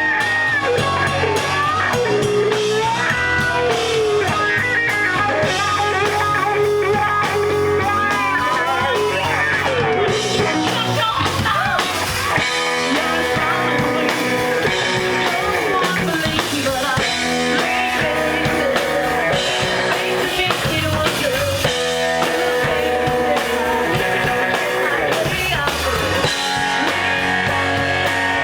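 Live rock band playing: electric guitar with bending lead lines over bass and a drum kit.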